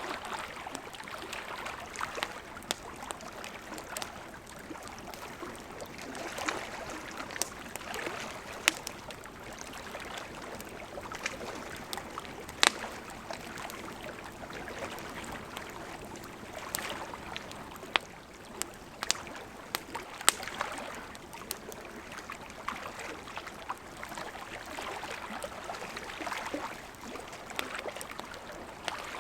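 Campfire crackling, with irregular sharp pops and snaps, the loudest about twelve and twenty seconds in, over gently lapping lake water that swells and fades every few seconds.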